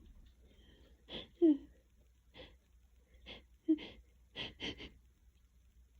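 A woman with a head cold in a sneezing fit: a run of about eight short, sharp wheezy breaths and small sneezes, the two loudest about one and a half and nearly four seconds in.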